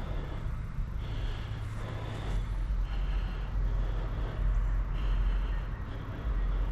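Steady outdoor background noise, a low rumble that swells and eases, with a fainter higher hiss coming and going in short patches.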